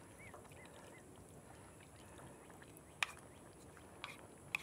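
A utensil clicking a few times against the cooking pot as chicken is spooned in: one sharp click about three seconds in and two more near the end, over a faint steady background.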